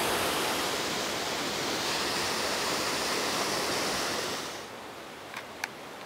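A waterfall pouring into a rock plunge pool, a steady rush of water that drops away about four and a half seconds in. A few light clicks follow near the end.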